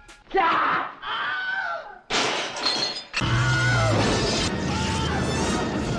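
Shattering crash sounds over music.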